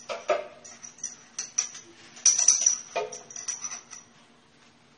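A string of clinks and knocks of kitchenware handled at a blender jar, with a brief bright metallic ringing about two seconds in.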